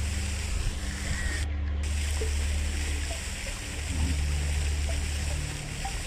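Steady rushing of flowing water, with a few faint, brief bird chirps here and there.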